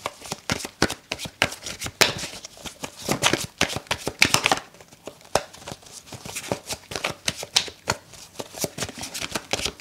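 A tarot deck being shuffled by hand: a quick, steady run of short card slaps and flicks that thins out briefly a little before halfway, then picks up again.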